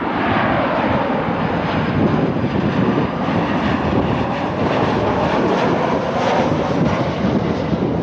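Avelo Boeing 737's jet engines running at approach power as the airliner passes low overhead with its landing gear down: a steady jet roar with a whine that falls in pitch during the first few seconds as it goes by.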